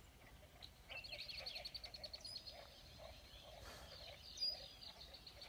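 Faint lake-edge wildlife chorus: a bird's rapid high trill about a second in, followed by scattered chirps, over lower croaking calls that are taken for American bullfrogs.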